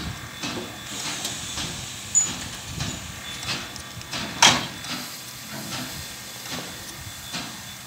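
PKP class TKt48 steam tank locomotive moving slowly, with soft regular chuffs about two or three a second over a hiss of steam. There is a brief high squeak about two seconds in and a short, sharp, loud burst about four and a half seconds in.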